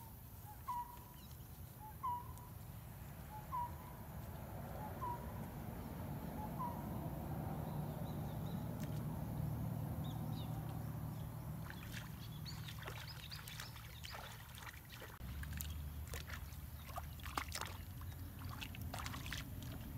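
Water sloshing and splashing as legs wade through a shallow muddy pond, with a run of short splashes in the second half as hands reach into the water. A bird gives a short call five times, about every second and a half, in the first few seconds.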